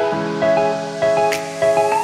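Background music: a melody of short held notes over a light beat.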